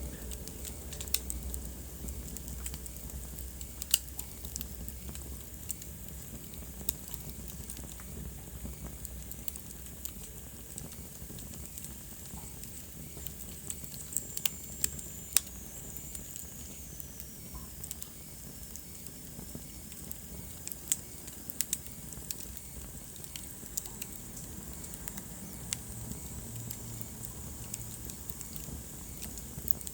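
Wood fire in a fireplace crackling, with irregular sharp pops over a steady low rumble of the flames. About halfway through, a faint high whistle falls slowly in pitch.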